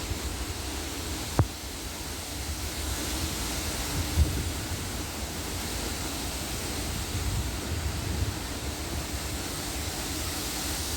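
Strong storm wind blowing steadily, with low rumbling gusts buffeting the microphone. A single sharp click about a second and a half in.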